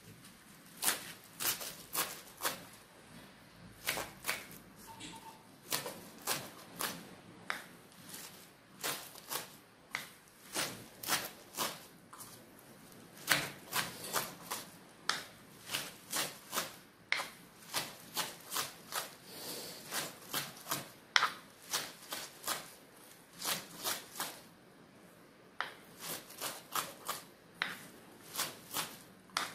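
Kitchen knife chopping mallow (khoubiza) leaves on a wooden cutting board: quick runs of sharp knocks, a few strokes at a time, with short pauses between runs.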